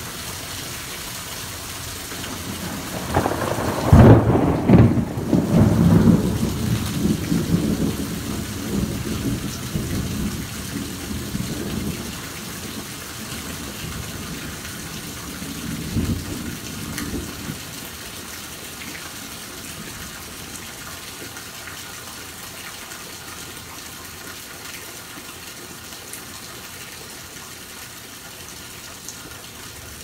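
Heavy, steady rain, with a loud clap of thunder about three seconds in that rolls on and fades over several seconds, and a shorter, weaker rumble of thunder around the middle.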